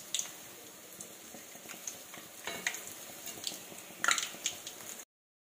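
Medu vadas of black urad dal batter sizzling as they deep-fry in hot oil in a metal kadai, with a few sharp clinks and scrapes of a metal slotted spoon against the pan as they are turned. The sound cuts off abruptly near the end.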